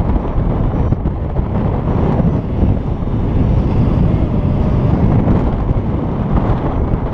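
Wind rushing over a helmet camera's microphone during paraglider flight: a loud, steady low rumble that swells slightly now and then.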